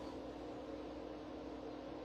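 Quiet room tone: a faint even hiss with a steady low hum.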